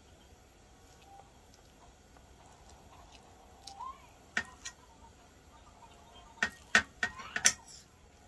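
Metal spoon clinking against a plate while scooping minced pork: two light clinks, then a quick cluster of sharper clinks and scrapes about six to seven and a half seconds in.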